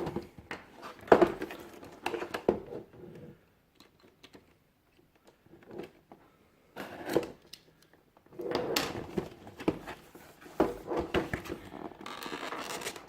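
Retail box and packaging of a gaming headset being opened by hand: scattered clicks, scrapes and rustles of cardboard and plastic, nearly quiet for a few seconds in the middle, then busier handling toward the end.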